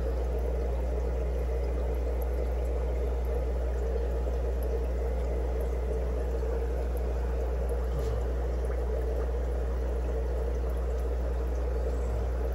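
Steady bubbling and trickling of water from air-driven aquarium box filters in the tanks, over a low, constant hum.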